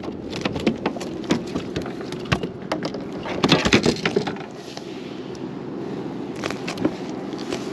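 Knocks and clatter of handling on a plastic kayak's deck and hull, with a busier run of knocks about three and a half to four seconds in, over a steady background hiss.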